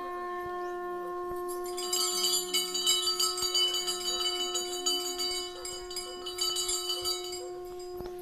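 Bells rung rapidly from about two seconds in until near the end, over a steady pitched drone that holds unbroken throughout.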